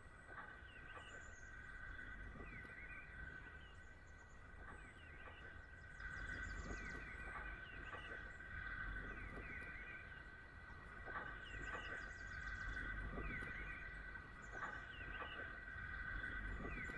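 Countryside ambience: birds chirping on and off over a steady high-pitched hum.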